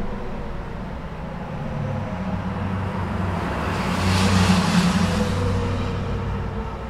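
Interstate highway traffic heard from beneath an overpass: a steady rush of tyres and engines, with one vehicle's low engine hum swelling to its loudest about four to five seconds in as it passes, then fading.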